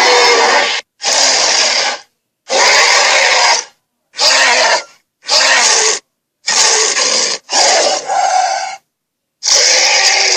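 Cartoon hydra monster sound effects: a string of short, raspy creature roars and growls, about eight in a row, each cut off by a brief silence.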